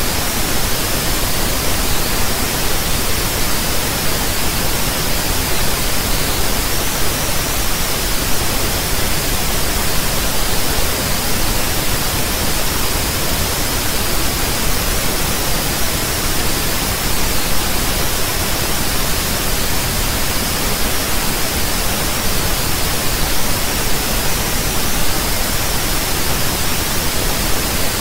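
Loud, steady hiss of static-like noise spread evenly from low to high pitch, with no other sound.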